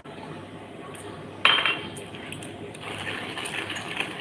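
A sudden sharp clink about a second and a half in that rings briefly, like hard crockery or metal being knocked, then a busier clattering noise near the end.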